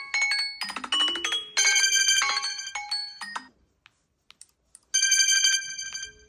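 Smartphone ringtone sounds: bright electronic chiming melodies. A short chime opens, then a run of quick notes follows, and after a short pause with a few clicks comes a bell-like chime that rings out and fades.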